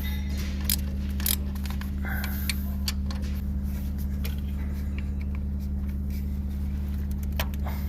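A machine's steady low hum with a few light clicks and clinks over it.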